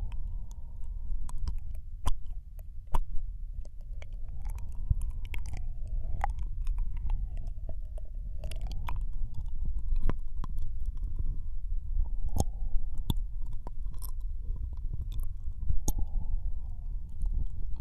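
Close-up binaural ear-licking mouth sounds: a man's wet tongue and lip clicks and smacks, irregular and many, right against a microphone's ear, over a steady low rumble.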